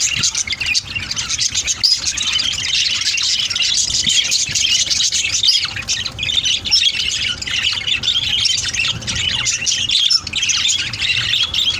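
Many small parrots chattering and squawking at once, a dense, unbroken mass of short overlapping calls.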